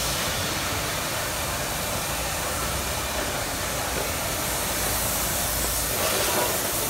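A steady hiss with a low rumble underneath.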